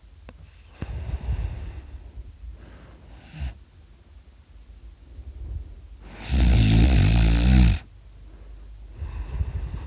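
A sleeping person snoring: a moderate snore about a second in, a brief one near the middle, and one much louder snore lasting about a second and a half some six seconds in, then another moderate snore near the end.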